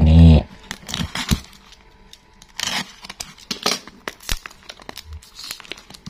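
Packing tape and wrapping on a parcel crinkling and tearing as a utility knife blade cuts through it, in irregular crackles and short rips. The louder rips come around the middle.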